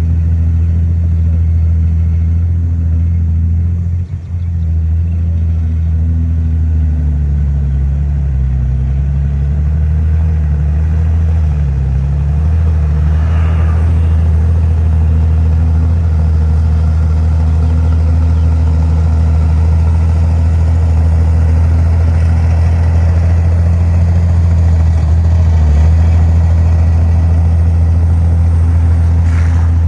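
Heavy earthmoving machine's diesel engine running with a deep steady hum, its pitch wavering up and down for a few seconds under changing load, with a brief dip in loudness about four seconds in.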